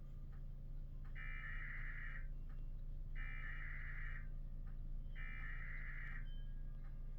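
Emergency Alert System (SAME) digital header for a Required Weekly Test: three bursts of buzzing data tones, each about a second long and about a second apart, over a steady low hum.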